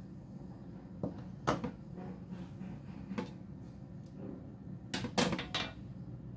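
Stainless steel bowl and kitchen knife being set down on a countertop: a handful of sharp clacks and knocks, the loudest cluster about five seconds in.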